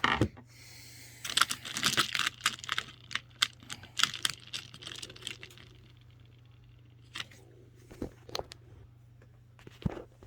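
Quick runs of small sharp clicks and rattles, densest from about a second in to halfway, then a few scattered clicks: screws being fitted into a PC power supply in the case.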